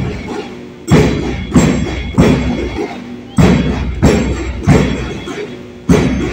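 Bass drum beating a marching cadence: three beats about two-thirds of a second apart, then a pause, over and over. Each beat rings on briefly.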